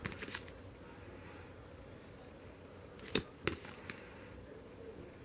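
Polaroid-style photo cards handled and flipped through by hand: a few short clicks and taps of card stock, a cluster just after the start and another about three seconds in.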